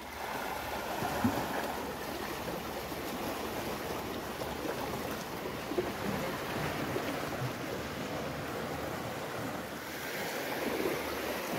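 Small sea waves washing steadily against shore rocks.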